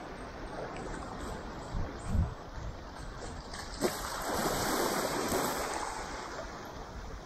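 Shallow seawater washing and lapping over a reef flat, with wind on the microphone. A low thump comes about two seconds in, and the wash swells louder about four seconds in, then eases off.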